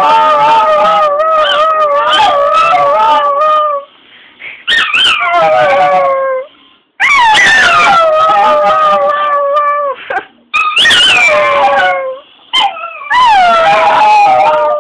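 A small dog howling: a series of long, wavering howls, several of which start high and slide down, with short breaks between them.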